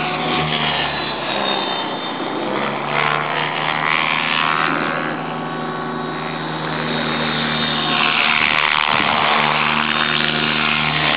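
Thunder Tiger e720 electric radio-controlled helicopter in flight, its motor and rotor whine sweeping up and down in pitch as it manoeuvres, louder from about eight seconds in.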